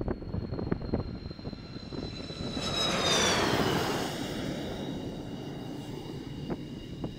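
A MiG-29 fighter's jet engines running with a high turbine whine as the jet rolls along the runway. The sound swells to its loudest about three seconds in, the whine dropping in pitch as the jet goes by, then settles to a lower, steadier whine.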